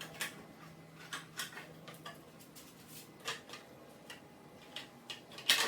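Scattered light clicks and knocks, a few seconds apart, from hands and tools working on the scooter's front body cover, with a sharper double click near the end.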